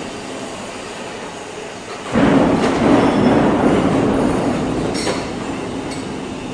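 Heavy machinery in a steel fabrication workshop starts a loud rumbling about two seconds in, which slowly fades toward the end, over steady factory noise. A couple of short clicks come near the end.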